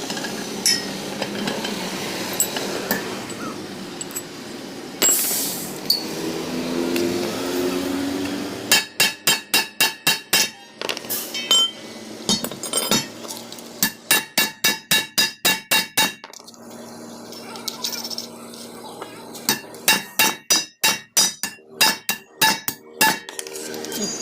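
Hammer blows on steel in three quick runs of ringing strikes, about four a second, during work on a bus main shaft. Scattered metal clinks come before the first run.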